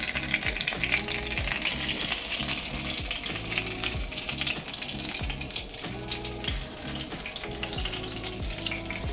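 Fried dumpling dough frying in hot oil in a pan: a steady crackling sizzle, with background music underneath.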